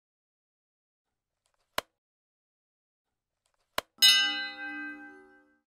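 Subscribe-button animation sound effect: two mouse clicks about two seconds apart, then a bright bell ding that rings out and fades over about a second and a half.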